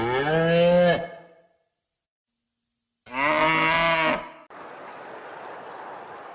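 Cow mooing, two calls a few seconds apart, the first ending about a second in. Near the end it gives way abruptly to a steady hiss.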